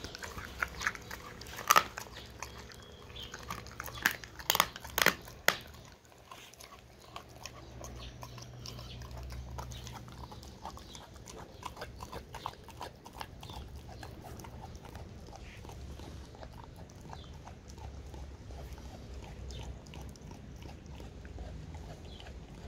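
Dog chewing a raw half turkey wing: a few loud, sharp crunches in the first six seconds, then steadier, softer chewing with a low rumble underneath.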